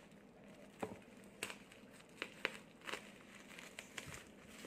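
Bubble wrap around a small box crinkling and crackling in a few faint, scattered clicks as hands grip it and scissors cut into it.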